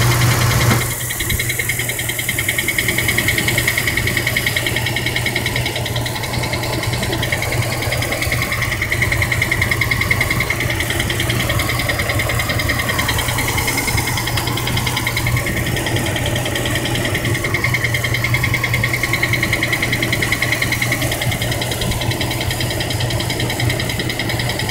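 2003 Dodge Durango's engine running steadily with a rapid, even ticking over its low hum. The owner traced the ticking to low transmission fluid.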